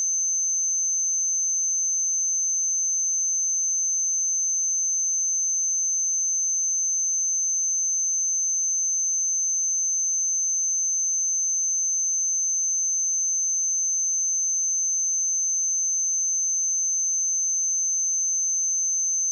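A steady, high-pitched 6214 Hz sine-wave test tone, one pure unchanging pitch at constant loudness.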